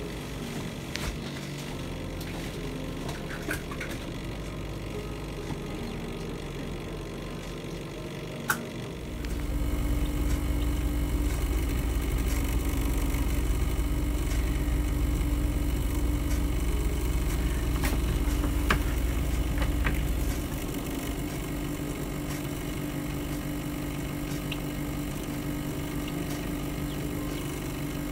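Steady mechanical hum of a small computer fan running inside a still-air incubator. A deeper, louder hum joins about a third of the way through and drops away again about two-thirds through.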